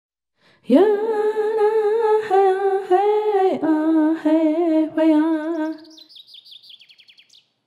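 A lone voice singing a chant-like line: it slides up into a long wavering note, then steps down through a few held, wavering notes and fades out about six seconds in. Near the end comes a quick run of high, falling chirps.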